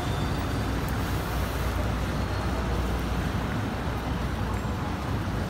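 Steady low rumble of city road traffic, with the even hiss of tyres on rain-wet roads.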